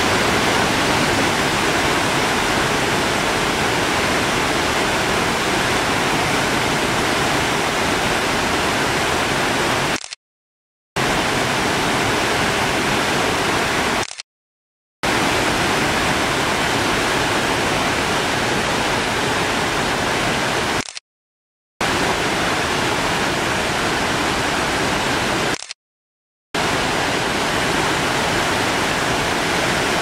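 Water pouring over a concrete lake spillway and rushing through the channel below: a steady rush of falling water. It cuts out to dead silence four times, for about a second each.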